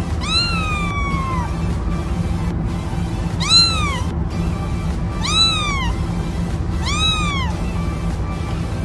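A kitten meowing four times in high, thin calls that each rise and then fall in pitch, the first the longest, over background music.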